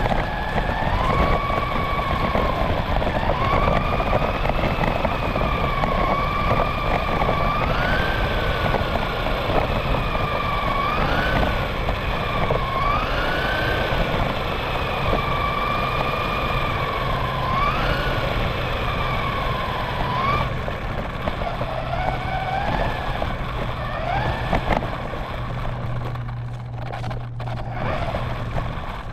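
Radio-controlled car driving on a road: its motor whines in irregular pitch glides that rise quickly and sink again as the throttle changes, over a steady rumble of tyres on pavement. The whine fades out near the end.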